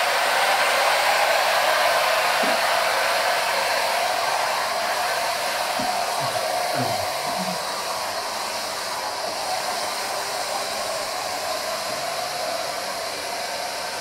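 Handheld hair dryer switched on and blowing steadily during a blow-dry with a round brush: an even hiss of air that comes on abruptly and grows slightly quieter over the seconds.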